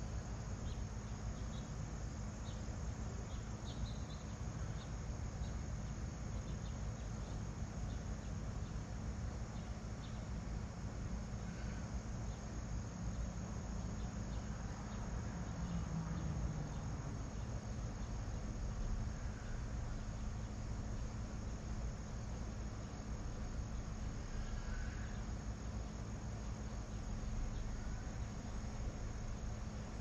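Steady, unbroken high-pitched trilling of crickets, over a constant low background rumble.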